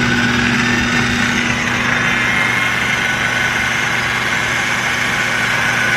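Food processor motor running steadily on high, churning soaked cashews, lemon and oat milk into a smooth vegan ricotta paste. A loud, even hum with a low steady tone.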